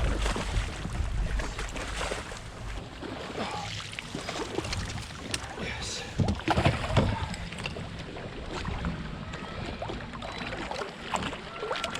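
Water splashing and slapping against a fishing kayak's hull, with wind rumbling on the microphone in the first couple of seconds. A cluster of sharper splashes and knocks about six to seven seconds in is the loudest part.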